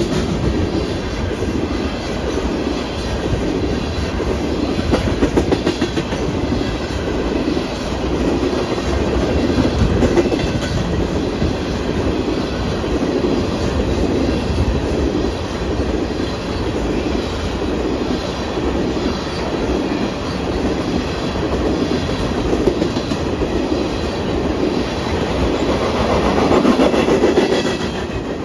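Empty railroad tank cars of an ethanol train rolling steadily past, their wheels rumbling and clicking over the rail joints in a repeating rhythm.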